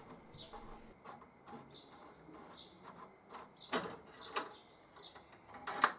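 Small birds chirping over and over in the background, with a few sharp clicks and knocks as a copper fuel pipe is worked loose by hand. The loudest knock comes near the end.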